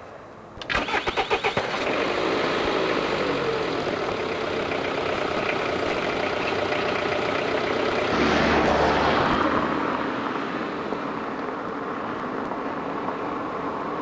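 Minivan engine cranked by its starter, catching about a second in, then running as the van drives off. The engine noise swells louder around eight seconds in, then eases.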